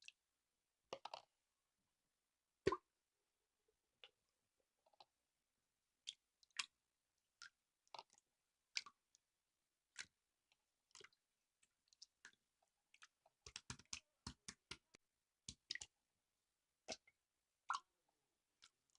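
Irregular short, sharp clicks and small taps, about one or two a second, with near silence between them and a quick run of clicks about two thirds of the way through.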